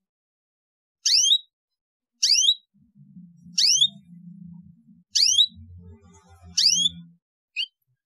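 Domestic canary chirping: a short, high call of two quick falling notes, repeated five times at even spacing of about a second and a half, with a brief extra note near the end. A faint low rumble sits underneath in the middle.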